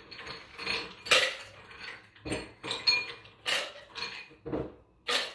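Ice cubes clattering into a metal cocktail shaker tin as they are scooped in, in a string of about ten uneven, sharp clinks and rattles.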